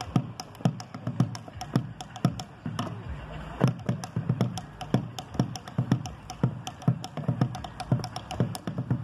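Malambo rhythm: quick, even drum strikes, deep thumps mixed with sharp wooden clicks, as of a bombo legüero struck on its skin and rim, along with the dancer's zapateo footwork.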